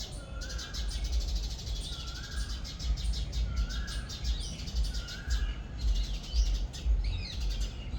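Birds calling: one short rising call repeated about every second and a half over rapid high chattering, with a steady low rumble underneath.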